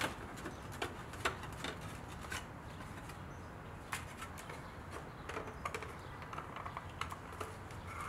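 Irregular light clicks and taps of hard plastic center console parts being handled and pulled apart, spaced about a second or less apart.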